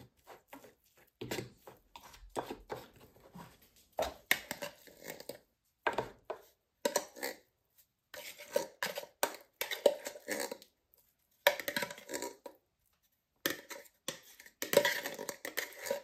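A metal spoon clinking and scraping against open tin cans and hard plastic slow-feeder bowls as wet dog food is spooned out and pressed into the bowls. It comes in irregular bursts of clicks and scrapes with short pauses between.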